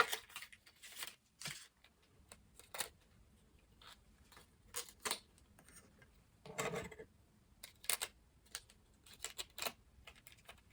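Plastic packaging being opened by hand to get at a laptop RAM module: irregular small clicks and crinkles, with a short crackly rustle about two-thirds of the way through.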